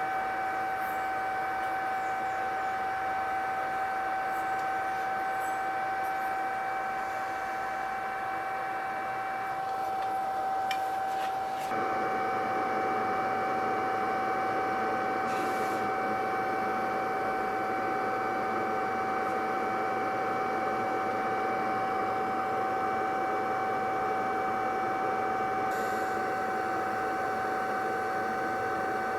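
A steady machine whine with a hiss behind it; the hiss grows louder about twelve seconds in.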